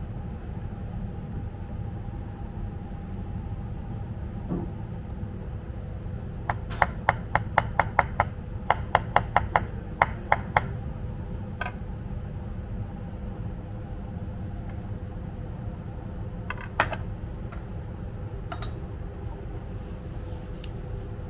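A sushi knife tapping on a bamboo cutting board: a quick run of about fourteen sharp taps, four or five a second, as a slice of ark shell is scored, then a few lone ticks and one sharper knock. A steady low hum runs underneath.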